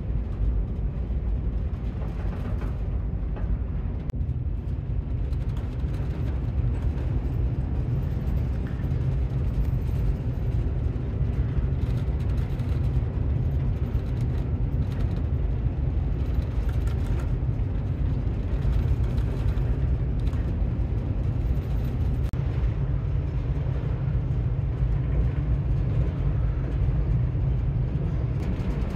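Steady low rumble aboard a large ferry under way.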